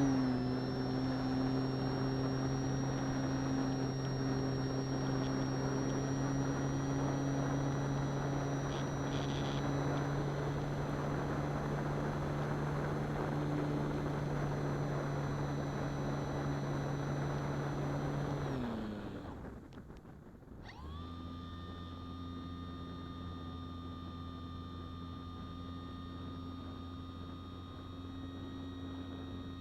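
Electric motor and propeller of a Durafly Excalibur RC plane running at steady throttle, a steady whine over a rushing haze. About 19 seconds in it winds down, and from about 21 seconds a quieter steady hum remains.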